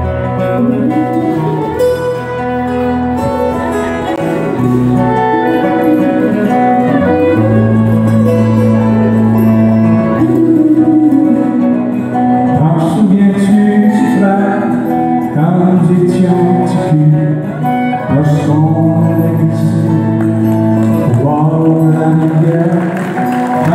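Live country band playing: strummed acoustic guitars with fiddle and drums, and a man singing.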